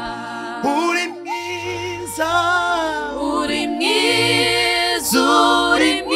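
Gospel worship song sung in Kinyarwanda by a small group of voices, holding long notes with a wavering vibrato between short breaths.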